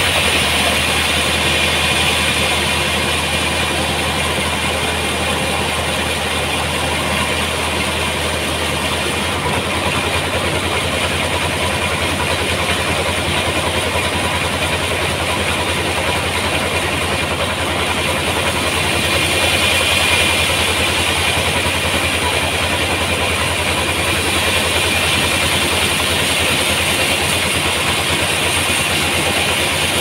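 Band sawmill running, its blade cutting lengthwise through a large trembesi (rain tree) log. A steady low machine hum sits under the hiss of the cut.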